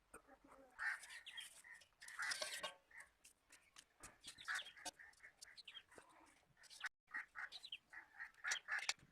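Chickens clucking and calling in short, repeated calls, with a few sharp clicks in between.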